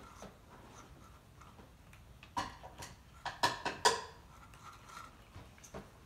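Cats eating a mix of wet and dry food from food bowls: scattered crunching and clicking, with a cluster of sharper clicks and clinks from about two and a half to four seconds in.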